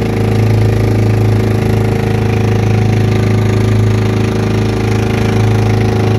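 Engine of a small motorized outrigger boat (bangka) running steadily under way, an even, unchanging drone.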